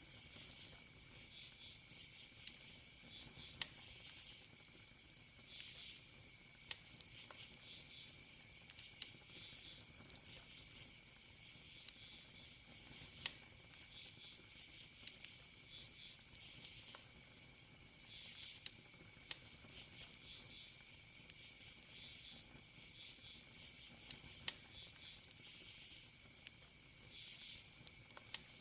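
Campfire crackling, with sharp wood pops at irregular moments, over a steady high cricket trill and repeated bursts of higher insect chirping.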